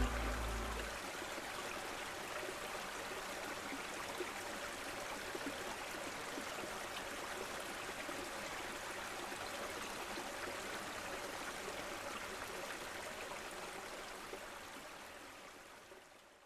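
Steady running water of a stream, trickling and gurgling, fading out near the end. Music dies away in the first second.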